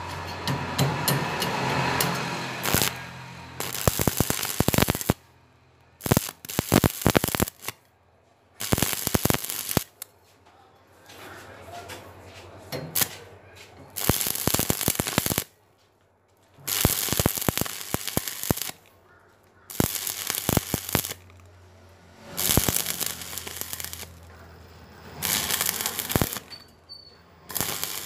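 Stick-welding arc crackling and sputtering on thin steel tube and pipe, in a series of short bursts of one to two seconds with brief pauses between, as the electrode is struck, run and broken off again.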